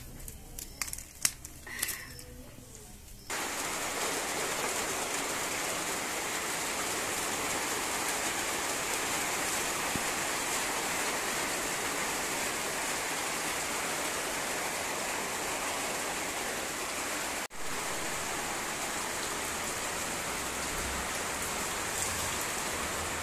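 A few sharp clicks and knocks in the first three seconds. Then a sudden switch to the steady hiss of rain falling on wet concrete.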